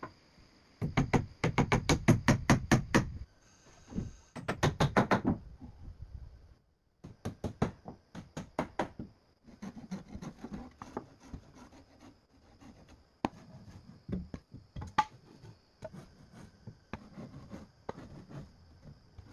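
Hammer driving nails into wooden boards: two runs of quick blows, about four or five a second, in the first five seconds, then slower, scattered knocks. A steady high thin whine runs underneath.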